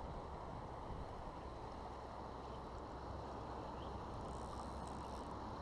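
Steady rushing of a fast river current, with low wind buffeting on the microphone.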